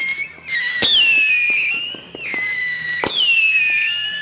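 Consumer fireworks going off: shrill whistles that each slide down a little in pitch and overlap one another, broken by sharp cracks about a second in and again about three seconds in.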